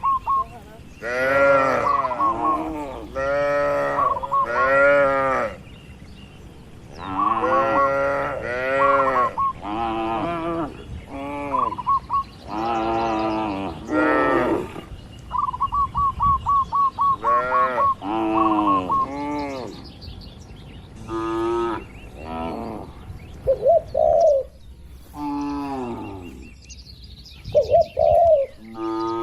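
Cattle mooing over and over, many calls in quick runs that rise and fall in pitch. Between them come short runs of a fast, even chirping at one steady pitch, like a bird's call.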